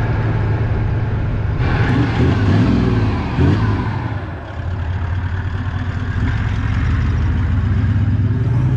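A 4WD ute driving on a sandy track: a steady engine drone with tyre and wind noise, the engine note rising and falling briefly about two to three seconds in.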